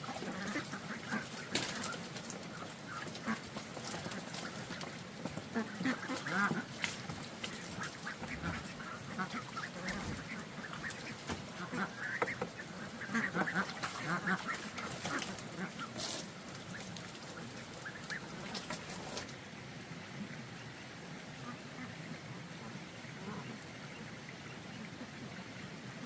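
Bird calls with scattered sharp clicks, busy for the first two-thirds and then dying down to a quieter background.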